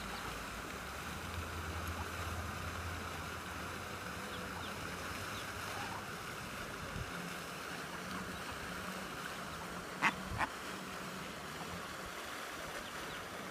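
Steady rushing outdoor background noise, with a few faint high peeps from mallard ducklings and two short sharp sounds close together about ten seconds in.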